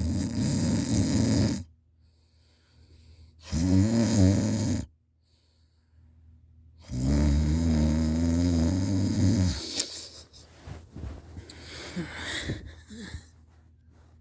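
A person snoring while asleep face down: a rough, noisy snore that ends about a second and a half in, then two buzzing snores with a clear pitch, the first wavering and the second steadier. After the last snore come softer irregular clicks.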